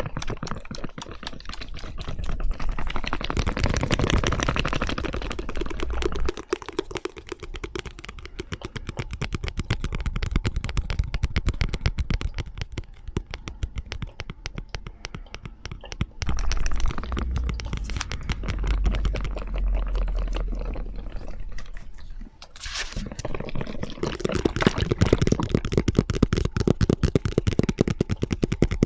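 Fast, continuous tapping, several tapping sounds layered over one another, with the mix changing as one tapping sequence fades into the next about six, sixteen and twenty-three seconds in.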